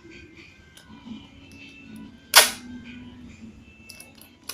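One short, sharp crinkle about halfway through, with a smaller one near the end, from handling a sponge squishy wrapped in plastic. Faint background music underneath.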